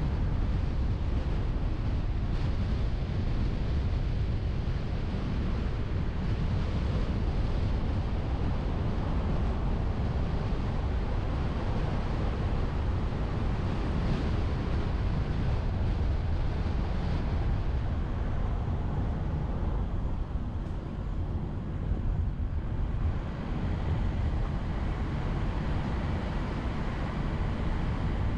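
Wind noise on the microphone of a car-mounted GoPro, over the steady road noise of the car driving. The rush eases for a couple of seconds about twenty seconds in.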